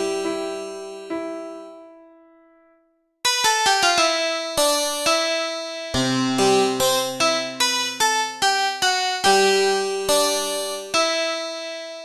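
Solo harpsichord playing. A chord dies away into silence over the first three seconds, then a phrase of plucked single notes and chords starts and ends on a note left to ring out.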